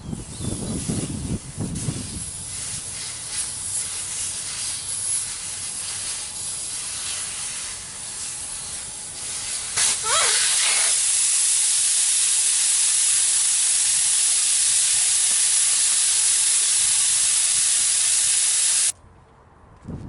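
Compressed air hissing. It starts uneven with knocks mixed in, then after a brief rising squeal about halfway through it becomes a loud, steady hiss that cuts off abruptly near the end.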